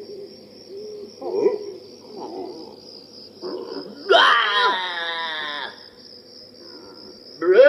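Soundtrack of an animated singing jack-o'-lantern video: a steady high pulsing chirr under scattered short vocal sounds. About four seconds in, a loud drawn-out cartoon pumpkin voice slides in pitch for about a second and a half, and another starts near the end.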